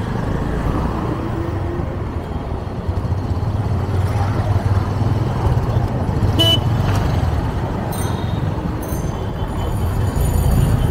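Motorbike engine running steadily while riding through busy street traffic. A short horn toot comes about six and a half seconds in.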